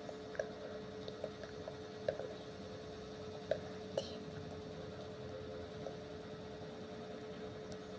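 Quiet room tone: a faint steady electrical hum with a few soft clicks scattered through the first half, the loudest about two seconds in.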